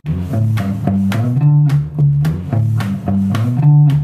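Instrumental music with bass and plucked guitar, cutting in abruptly and keeping a steady beat.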